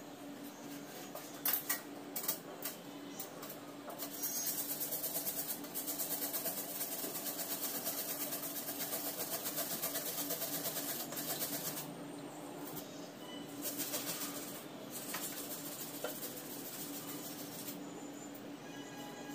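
Onion being grated by hand on a metal grater: quick repeated rasping strokes in a long run, then shorter runs after a pause.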